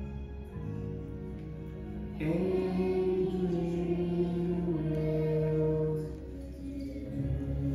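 Slow music with long held notes, and a group of young children singing along in unison; it swells louder for a few seconds in the middle.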